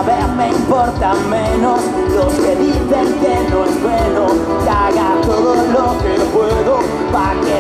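Live cover band playing a rock song over a PA: drums keep a steady beat under a bending melodic line.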